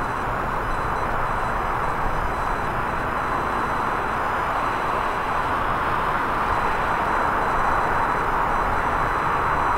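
Jet engines of a Boeing 787 airliner at climb power just after take-off: a steady rushing jet noise over a low rumble, growing slightly louder toward the end.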